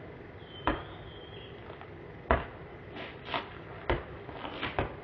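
Basketball being dribbled on a dirt road: about seven short, sharp bounces at uneven spacing.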